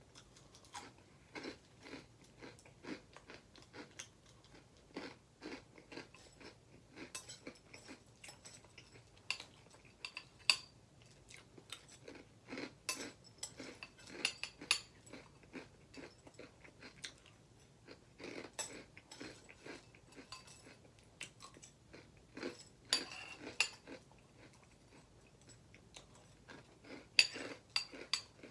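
A person chewing and crunching a mouthful of Apple Jacks cereal, a rapid irregular run of crisp crunches with a few louder bursts.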